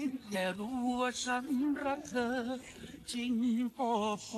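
A song: a singing voice in short phrases of held notes with a steady vibrato.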